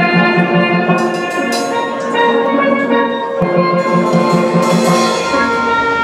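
Steel pan band playing a tune: bright, ringing steel pan notes over a low note struck in quick repeated runs, twice.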